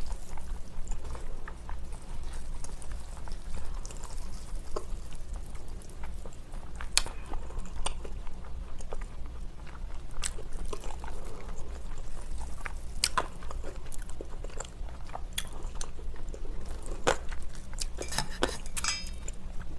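A person eating spicy cold noodles close to the microphone: chewing and slurping mouthfuls of noodles, with sharp clicks every few seconds.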